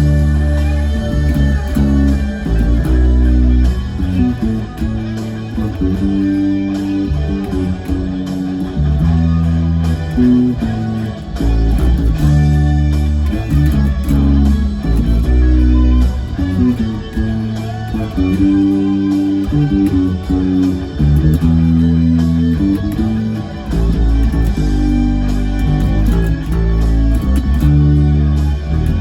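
Electric bass guitar played along with a rock ballad, the bass holding long low notes that change every second or two over guitars and a full band backing.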